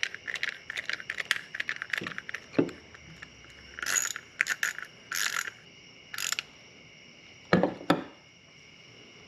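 Metal hand tool working a bolt through a white PVC pipe cap: a run of quick light metallic clicks, then a few scraping rasps midway, then two quick knocks near the end. Crickets trill steadily behind.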